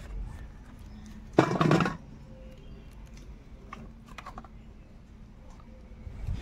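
A few light knife clicks from eggplant being cut, with one brief, louder noise about a second and a half in.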